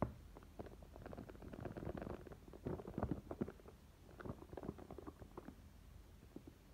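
Fingers gripping and sliding over a small cardboard product box as it is turned in the hand: a run of soft scrapes, taps and rustles, densest in the first half and sparser towards the end.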